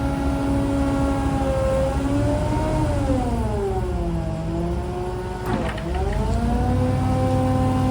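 An engine running at steady speed. Its pitch sags about three seconds in and dips sharply with a short crack a little past halfway, as if taking a sudden load, then climbs back to a steady speed.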